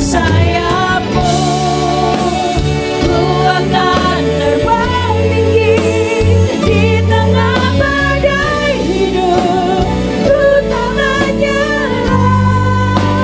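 Live gospel worship song: women singing a melody together over a band of electric guitar, keyboard and drums.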